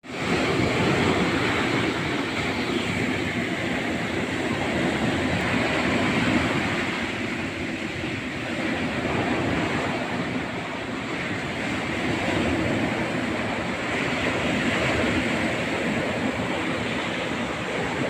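Sea waves breaking and washing on the shore: a steady rushing that swells and eases every few seconds.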